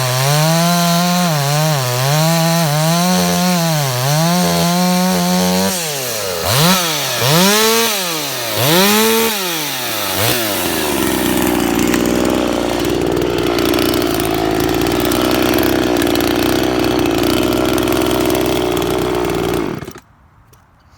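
Ported Dolmar 5000S two-stroke chainsaw cutting hard oak, its engine pitch dipping and recovering under load for the first several seconds. It then revs up and down three times, settles to a steady idle, and is shut off abruptly near the end.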